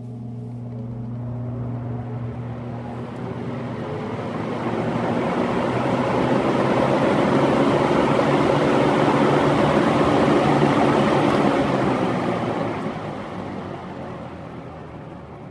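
Eskimo Model 2016 16-inch box fan with a single-phase shaded-pole motor, heard from behind, starting up on high speed. A motor hum comes with a rush of air that builds over several seconds as the blades spin up. About twelve seconds in, the hum stops and the air noise fades as the blades coast down.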